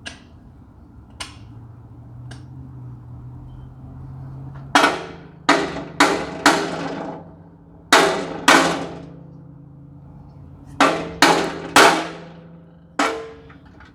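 Hammer blows on metal, knocking a stuck part out of a diesel engine: a few light taps, then about ten hard strikes in quick bursts of two to four, each ringing briefly.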